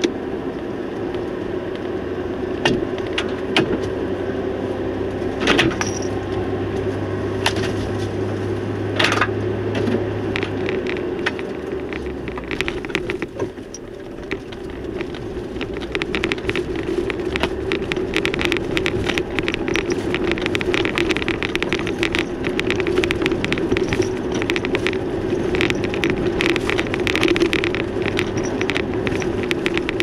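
Vehicle driving along an unpaved forest road: steady engine and tyre noise, with many small clicks and crackles of stones under the tyres. It eases off a little under halfway through, then picks up again.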